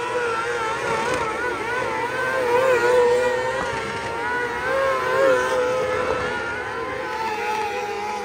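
Engines of small open-wheel dirt-track race cars running on the track, their pitch wavering up and down as they go through the turns, a little louder about three and five seconds in.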